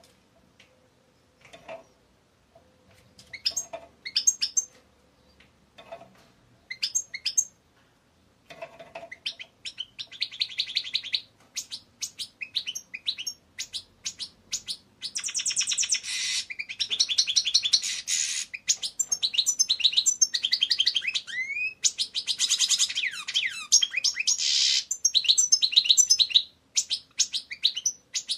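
European goldfinch singing: a few short, separate chirps at first, then from about ten seconds in a fast, nearly continuous twittering song full of rapid trills.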